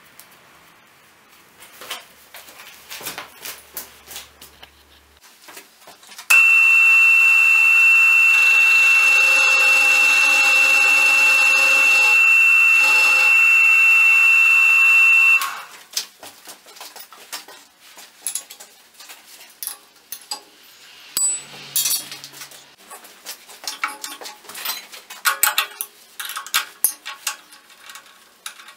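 An end mill on a homemade Bridgeport-style milling machine cuts into a round metal part with a loud, steady, high-pitched squeal. The squeal starts abruptly about six seconds in and stops suddenly about nine seconds later. Before and after it come scattered metallic clicks and knocks from chips and tools being handled, including a spanner on the spindle's collet nut near the end.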